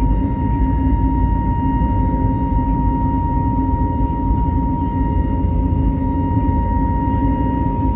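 Airbus A320's jet engines running at takeoff thrust: a steady deep rumble with a constant high whine over it.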